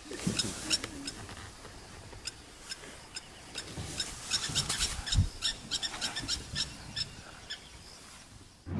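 Animal sounds: runs of short, high-pitched chirps and clicks, with a few low thumps among them, densest about halfway through.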